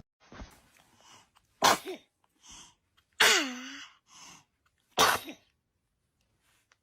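A baby sneezing three times, roughly a second and a half apart, with short breaths in between; the second sneeze trails off in a brief squeak falling in pitch.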